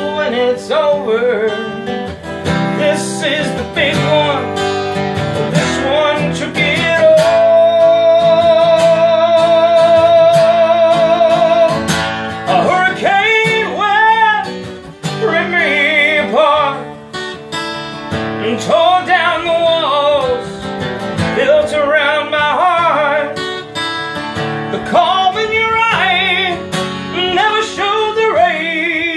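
A man singing a country song to his own strummed acoustic guitar, with a long held, wavering note from about 7 to 12 seconds in.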